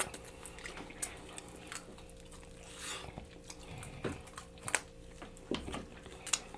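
Close-miked biting and chewing of sauced chicken wings: wet mouth smacks and chewing with scattered sharp clicks, a few of them louder.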